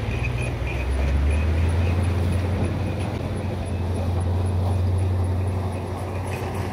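Diesel V8 of an old Ford pickup, a 6.9 IDI, running under load as the truck drives and slides on ice. Its low engine note strengthens about a second in and then holds steady.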